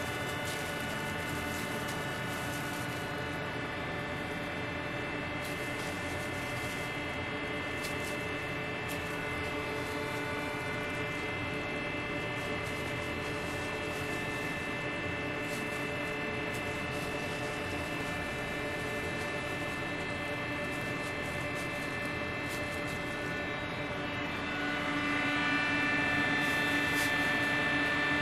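Steady hum of commercial kitchen machinery, several constant tones held together, growing louder about 25 seconds in. A few light clicks now and then.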